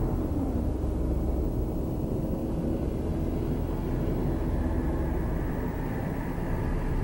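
Police cruiser driving at speed on a rural road: steady engine and tyre rumble heard from inside the car, with a faint drone over it.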